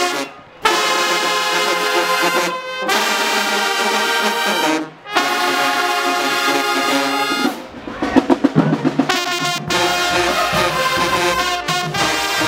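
High school marching band playing sustained brass chords, with sousaphones, trumpets and saxophones, that cut off sharply twice. About eight seconds in a drum roll takes over, and then the full band comes back in.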